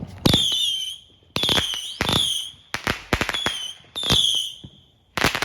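Fireworks going off in quick succession: about seven sharp bangs, most of them trailed by a short, high, wavering whistle, with a last loud bang near the end.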